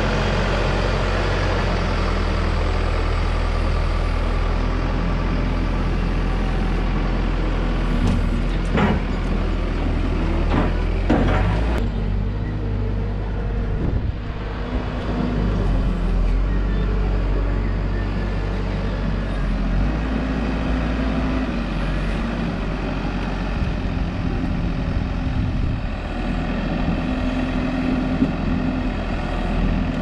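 Heavy vehicle engine running steadily while lumber is loaded onto a flatbed, its note shifting a few times, with a few sharp clunks about nine to twelve seconds in.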